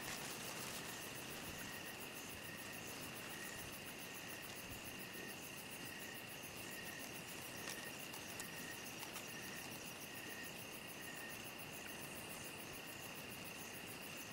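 Insect chorus of crickets: a steady high trill, with a slower chirp repeating a little more than once a second that drops out near the end, and a fast, very high pulsing over it.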